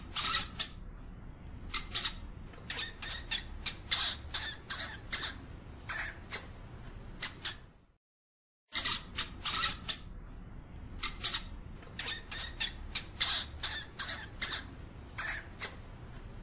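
European hamster giving short, sharp, high-pitched calls in irregular clusters, loudest at the start of each run. The same few-second run plays twice, with about a second of silence between.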